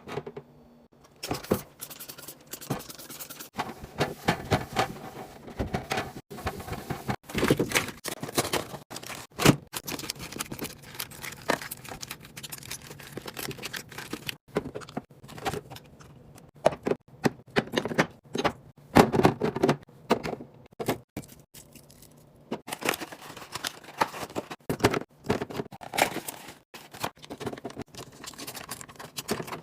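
Food containers and packaging being handled, stacked and set down: an irregular run of clicks, taps and scraping with rustles and short pauses.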